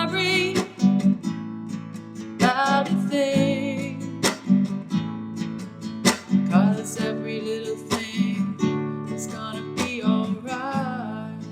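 Acoustic guitar strumming a slow, relaxed rhythm, with strong strokes about every two seconds, while a woman's voice holds long notes with vibrato.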